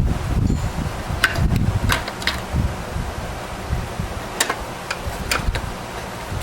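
Desktop computer parts being handled, giving several short, sharp clicks and knocks, in two clusters about a second in and a couple of seconds later, over a low handling rumble.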